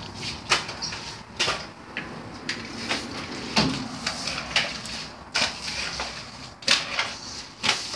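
A string of sharp knocks and clicks, about one a second, from footsteps and handling while walking in over a tiled floor past a wooden door.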